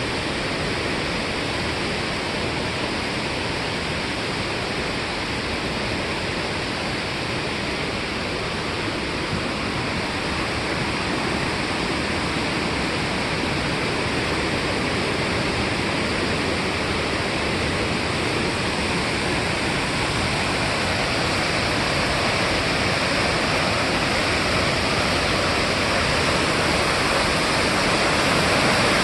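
A waterfall pouring, a steady dense rush of falling water that grows slightly louder toward the end.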